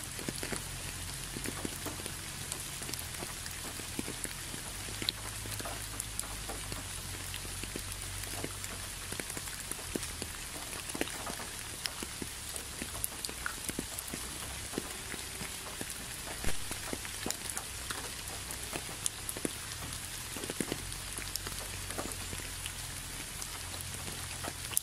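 Steady rain: an even hiss with many single drops striking close by on leaves and a wet surface, one drop louder about two-thirds of the way through. A low steady rumble runs underneath.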